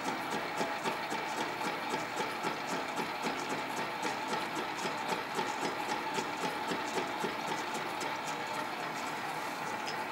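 Sieg SC4 metal lathe running, its four-jaw chuck spinning with the steel eccentric sheave held off-centre while the tool turns the boss: a steady motor whine with a regular rapid beat and light ticking.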